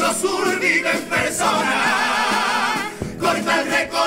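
Cádiz carnival comparsa choir singing in close harmony with its guitar-and-drum accompaniment, the voices holding a long wavering note through the middle. Drum strokes fall about a second in and again near three seconds.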